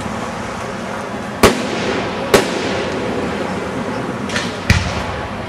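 Fireworks going off: four sharp bangs, two loud ones about a second apart in the middle, then two quieter ones close together near the end, over steady outdoor background noise.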